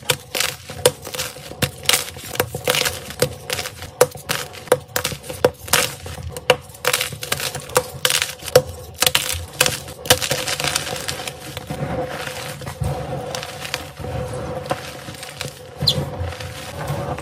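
White gym chalk blocks snapped and crushed by hand: a quick run of sharp snaps and crunches, turning about ten seconds in to a denser, steady crumbly crunching as the hands squeeze the loose pile of broken chalk.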